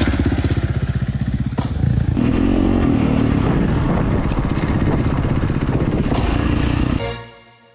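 Dirt bike engine running under throttle. Its sound changes about two seconds in, then it runs steadily and fades out near the end.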